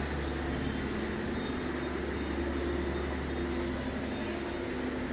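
Steady outdoor background noise: an even hiss over a constant low hum with faint held tones, and no distinct events.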